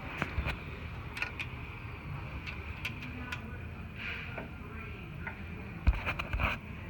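Scattered sharp metallic clicks and taps of a hand tool working the adjusting screws and bolts under a Rikon bandsaw table, with a quick cluster of louder clicks about six seconds in, over a steady low hiss.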